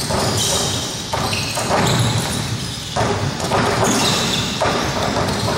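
Noise of a basketball practice in a large echoing arena, with ball bounces and thuds mixed into the din.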